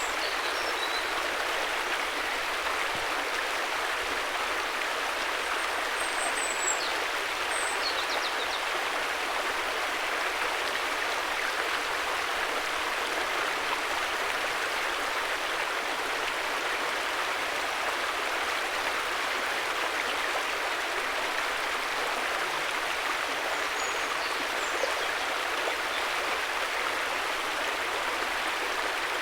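River water rushing steadily, with a few faint, high chirps now and then.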